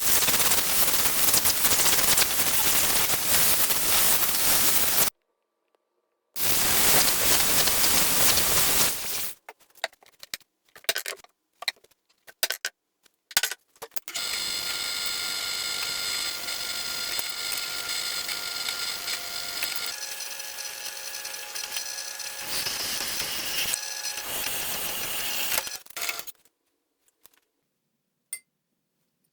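Woodworking power tools cutting and shaping wood. There are two loud stretches of dense cutting or sanding noise, then a run of scattered clicks and knocks. A longer spell follows of a motor-driven tool running with a steady whine that shifts in pitch twice.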